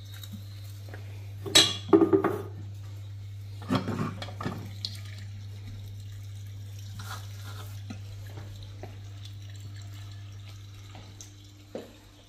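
Dishes and pots knocking together at a kitchen sink in two short bursts of clatter, then a few lighter knocks, over a steady low hum.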